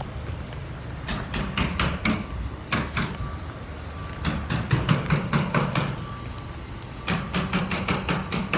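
Hammers driving nails into wood, in three runs of quick strikes at several a second, over a low steady hum.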